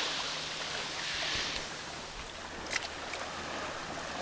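Small waves washing up on a rocky beach, one wash swelling and falling back about a second in, with a single sharp click near the end.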